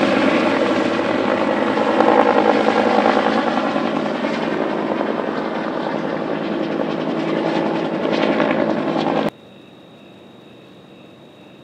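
Firefighting helicopter running loud and steady, rotor and turbine noise, which cuts off abruptly about nine seconds in. After the cut, faint insects chirping over a steady high tone.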